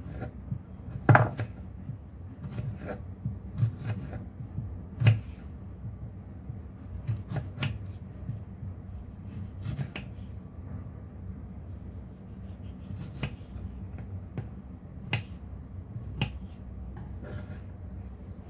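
Kitchen knife slicing a tomato and knocking against a wooden cutting board, in irregular knocks, the loudest about a second in and again about five seconds in.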